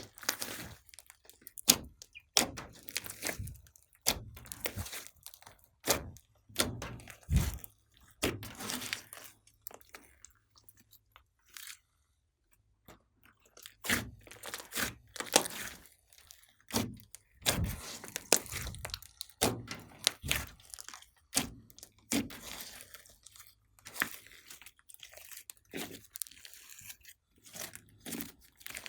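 Slime being kneaded and pressed by hand, making irregular sticky clicks, pops and crackles. There is a short pause a little before the middle.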